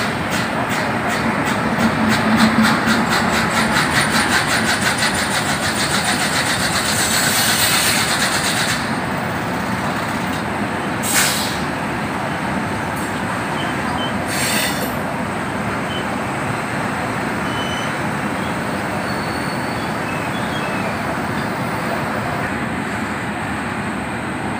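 WAP-7 electric locomotive standing at a platform with its machinery running, a steady whir that pulses rhythmically for the first several seconds. Two short hisses come about eleven and fourteen seconds in.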